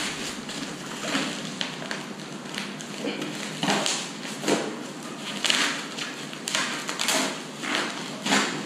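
Thin clear plastic wrapping crinkling and rustling in the hands as it is pulled off a small cardboard retail box, in a string of crackly rustles about one a second.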